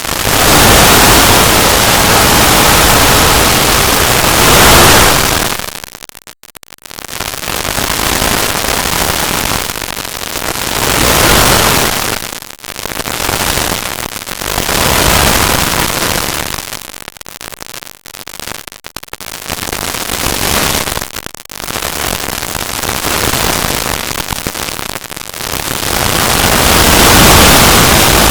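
Loud, harsh static-like noise that fills every pitch from deep rumble to hiss, swelling and fading in waves every few seconds, with brief dropouts.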